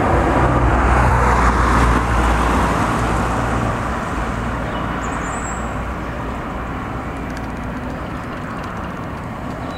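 Class 37 diesel locomotive's English Electric V12 engine running as it moves the test train, with a deep throb that is loudest in the first two seconds and then dies away.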